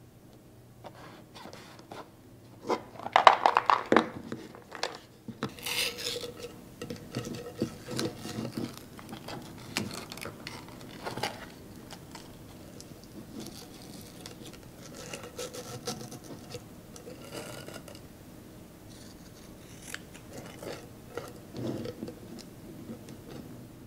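Sheer ribbon rustling and scraping against a clear plastic jar and its aluminium screw lid as it is wrapped around and tied into a bow, with light handling clicks; the loudest is a brief rasping slide of the ribbon about three seconds in.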